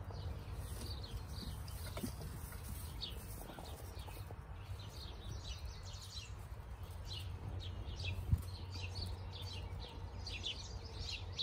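Small birds chirping over and over in the background, busiest near the end, above a steady low rumble. A single sharp knock comes about eight seconds in.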